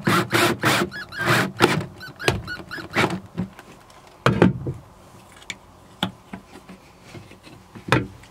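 Cordless drill/driver running a screw into a plastic toilet-seat hinge, the motor going in quick pulses for about three seconds. A few separate knocks and clicks follow, the loudest about four seconds in.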